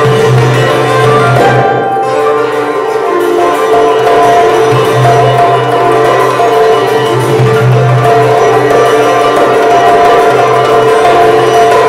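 Live instrumental trio of sitar, koto and hand drum: plucked sitar and koto notes ring over a recurring low held tone while the hand drum keeps the rhythm.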